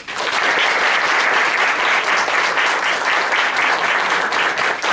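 Audience applauding, many hands clapping together; it breaks out all at once and keeps up at full strength.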